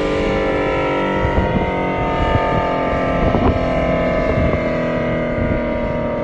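Federal Signal SD-10 mechanical tornado siren sounding a steady Alert tone, a rich held note whose pitch drifts slightly lower.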